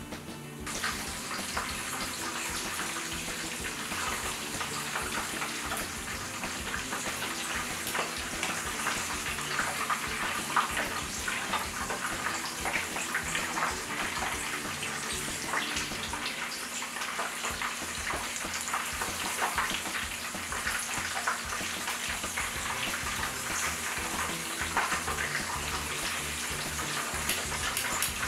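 Battered cheese corn dogs deep-frying in hot oil at about 350 °F, a steady dense sizzle and crackle of bubbling oil that starts about a second in.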